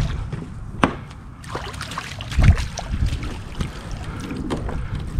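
Water dripping and splashing off a landing net as it is lifted out with a caught redfish and swung into a kayak, with scattered knocks and clicks of the net and gear against the hull and one loud thump about two and a half seconds in.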